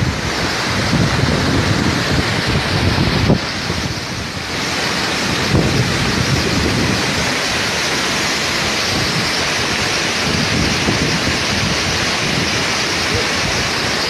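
Waterfall in heavy flow after rain: a loud, steady rush of falling water.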